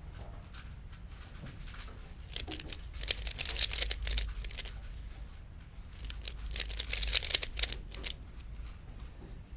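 3x3 speedcube being turned quickly by hand during a blindfolded solve: rapid runs of plastic clicks and rattles, densest in two flurries, about two and a half seconds in and again from about six to eight seconds in.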